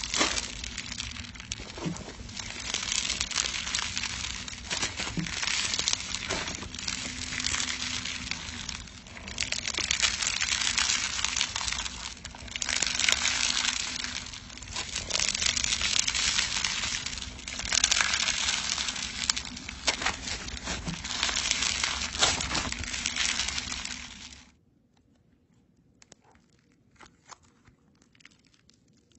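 Crunchy slime being squeezed and kneaded by hand, giving dense crackling and crinkling in repeated swells every couple of seconds. It stops abruptly about 24 seconds in, leaving only faint scattered clicks.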